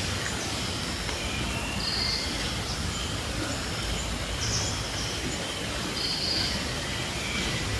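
Outdoor forest ambience: steady background noise with a low rumble, and short high bird calls about two seconds in and again about six seconds in.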